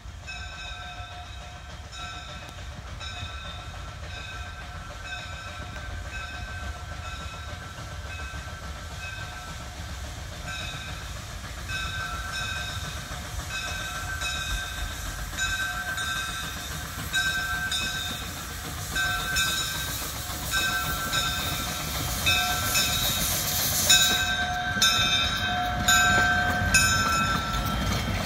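W.W.&F. No. 9, a two-foot-gauge steam locomotive, approaching with its bell ringing about once a second, growing louder as it nears. In the last few seconds the rumble and clatter of the engine and coaches rolling close past take over.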